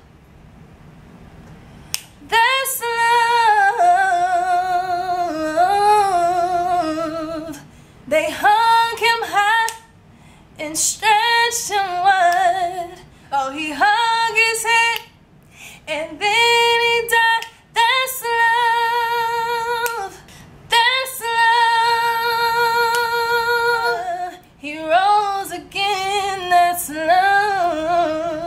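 A woman singing a worship song a cappella: wordless vocal runs and long held notes with vibrato, in phrases broken by short pauses.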